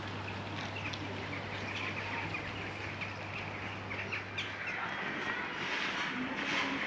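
Small birds chirping over a steady outdoor background, with a low hum that fades out about two-thirds of the way through.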